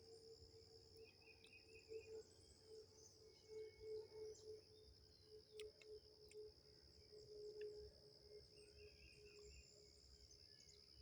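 Faint insect chorus: a steady high-pitched buzz with a lower pulsing tone beneath it, and a few short bird chirps now and then.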